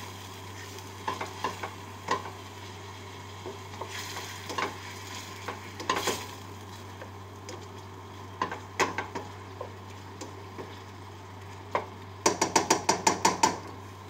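Chicken pieces sizzling in a stainless steel pan as they are stirred and turned with a spatula, which knocks and scrapes against the pan now and then. Near the end comes a quick run of about ten clicks.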